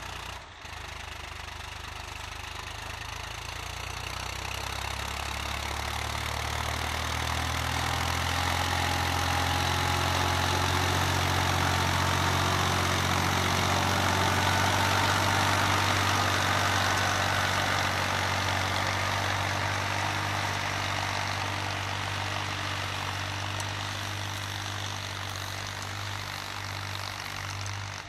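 Swaraj 960 FE tractor's diesel engine running steadily under load as it pulls a cultivator through dry soil. It grows louder as the tractor comes closer, loudest about halfway through, then slowly fades as it moves away.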